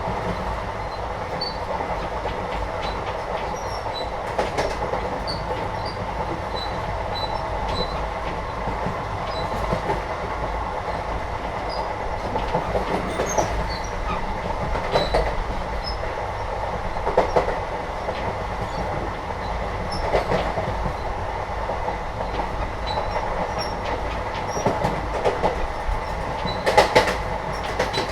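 Inside a moving Indian passenger train carriage: a steady rumble of wheels on track with the coach rattling, broken by scattered clacks and knocks, with a louder cluster near the end, and faint high squeaks.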